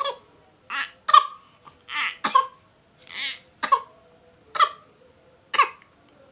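A baby making pretend coughs: a string of short coughs, about nine of them, spaced roughly half a second to a second apart, with a few drawn out a little longer.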